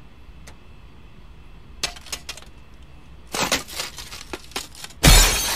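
Cartoon sound effect of electricity arcing: scattered sharp crackles, then a denser run of crackling and sparking, then a sudden loud crash-like burst near the end.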